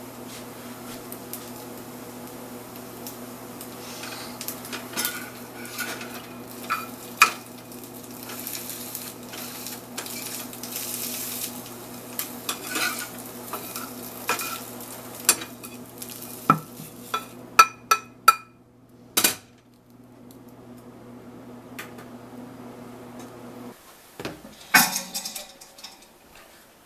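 Clinks and clatter of hard objects being handled over a steady electrical hum. The hum cuts off abruptly about 24 s in, and a few more knocks follow.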